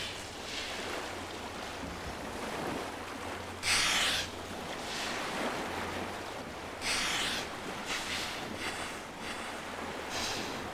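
Killer whales surfacing and exhaling: four short, sharp hissing blows, the first about four seconds in and the loudest, over a steady wash of water and wind.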